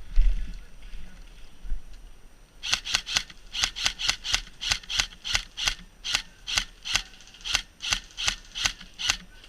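Running footsteps through forest undergrowth: a regular crunching stride about three a second that begins a few seconds in, after a thump and some rustling at the start.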